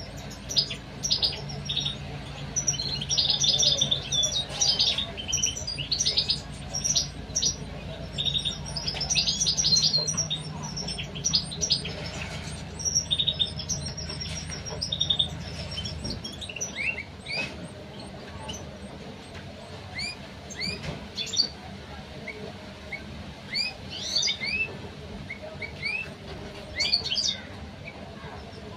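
European goldfinch nestlings chirping in quick runs of high-pitched calls, the begging calls of chicks in the nest; from about halfway the calls turn into short rising chirps. A low steady hum underneath stops about halfway through.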